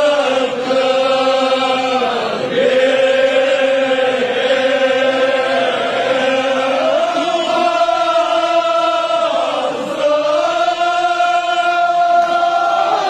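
Men chanting together in long, drawn-out notes, each phrase held for a few seconds before the pitch dips and a new phrase begins.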